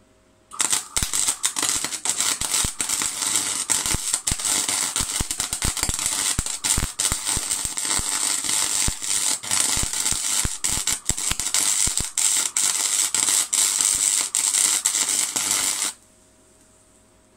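MIG welding arc from a Clarke MIG 160EN welder, crackling steadily with a dense run of sharp pops. It starts about half a second in, runs for about fifteen seconds and cuts off suddenly near the end as the trigger is released.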